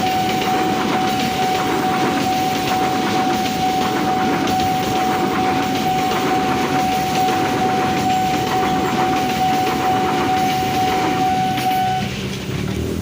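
A train passing close by, its wheels rumbling and clattering over the rails. A single steady high tone sounds over it and cuts off about a second before the end.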